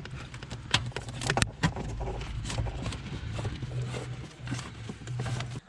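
Scattered sharp clicks and knocks of metal parts and tools being handled in a car's engine bay, over a steady low hum. The sound cuts off suddenly near the end.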